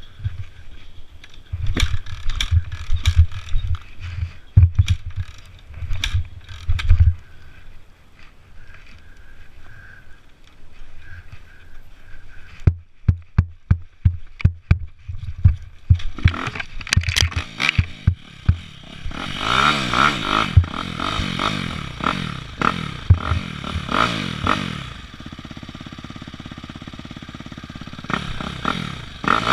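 Dirt bike being worked free: knocks and clatter first, then its engine runs from about two-thirds of the way in, revving up and down. It settles to a steady idle and picks up again at the very end.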